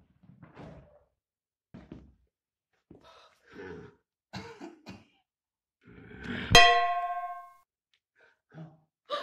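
A few short grunts and breaths, then, about six and a half seconds in, a frying pan struck once: a loud metallic clang that rings for about a second.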